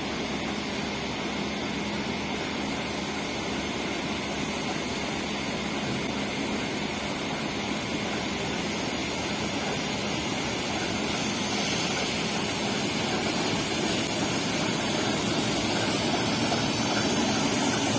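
TEM2 diesel shunting locomotive's six-cylinder diesel engine running steadily as it pulls two freight wagons, growing louder as it draws nearer.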